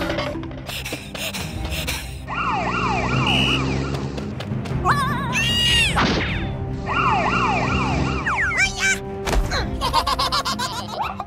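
Ambulance siren sound effect sweeping quickly down in pitch over and over, heard in two runs over background music. A thump comes near the end.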